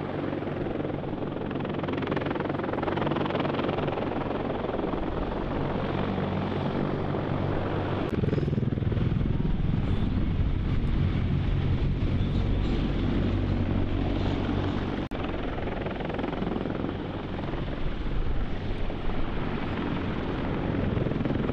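Sikorsky CH-53E Super Stallion heavy-lift helicopter flying low and passing by, with its rotor beat and turbine engines sounding steadily throughout. About 8 seconds in, the low rotor thump grows stronger as the aircraft turns.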